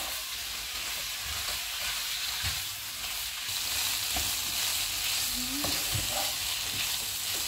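Chicken strips, bell peppers and onion sizzling in a hot non-stick wok while a wooden spatula stirs them, with a few soft knocks of the spatula against the pan.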